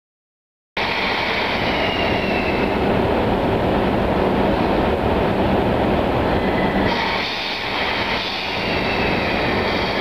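A pair of EF64 electric locomotives at the head of a freight train, running with a loud, steady mechanical noise that starts suddenly about a second in. About seven seconds in, a higher hiss joins it.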